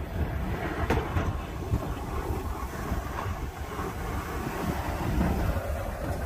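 Pickup truck with a BOSS snowplow blade pushing snow: the engine running and the steel blade scraping and rumbling along the pavement as it comes closer, with a sharp click about a second in.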